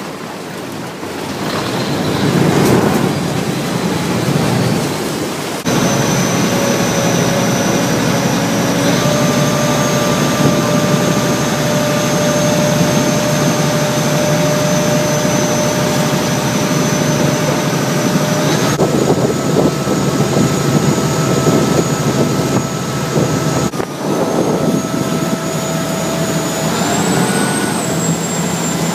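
A river passenger boat's engine running at speed, with a steady whine over the rush of water along the hull and wake. Quieter for the first second or two, then louder; near the end the whine rises in pitch as the engine speeds up.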